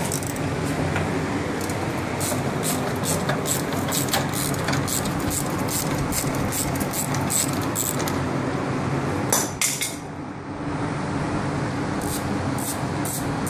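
Ratchet wrench clicking in short runs as the bolts of the front axle boot guard are loosened, with a louder clatter about two-thirds of the way in, over a steady background hum.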